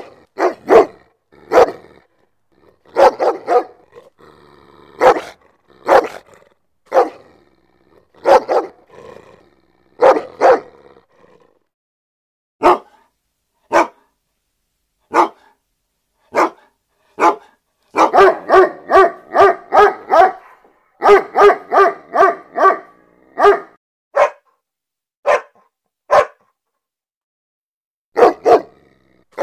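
A dog barking repeatedly: single barks with silent gaps between them, breaking into quick runs of several barks about two-thirds of the way through.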